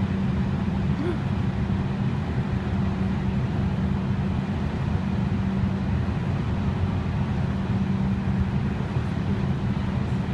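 Steady low motor rumble with a constant hum that holds unchanged throughout.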